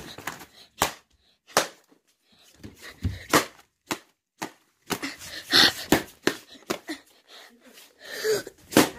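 Plastic fly swatter slapping down on hard surfaces again and again: about a dozen sharp smacks at uneven intervals.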